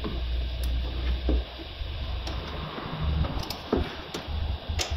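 Scattered clicks and knocks of hands handling plastic and metal parts inside the stripped rear door of a VW Polo 9N3, the sharpest knock near the end, over a steady low hum.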